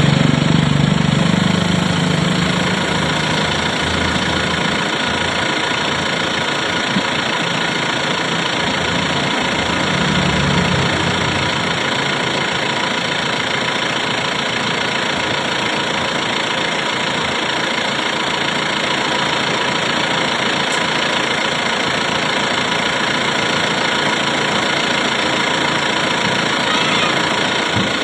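Hitachi excavator working, its engine running steadily, with heavier low surges in the first few seconds and again about ten seconds in.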